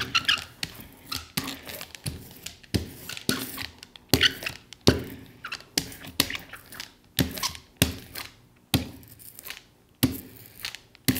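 Hand glue roller being rolled back and forth through wet glue on a plywood panel: an irregular run of sticky rolling strokes and sharp knocks, about one or two a second.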